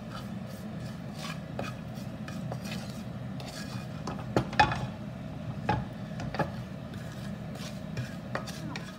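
Wooden spoon scraping and stirring a spice mix around a nonstick wok as the spices roast in a little oil, in many short scrapes and knocks, the loudest about four and a half seconds in, over a steady low hum.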